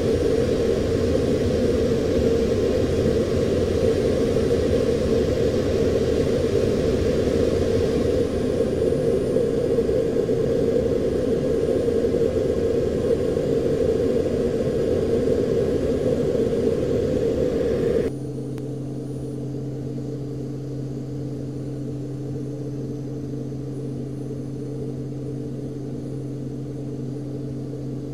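Steady cockpit drone of a U-2 in high-altitude cruise, engine and airflow noise heard from inside the canopy. About two-thirds of the way through it drops abruptly to a quieter steady hum made of a few held low tones.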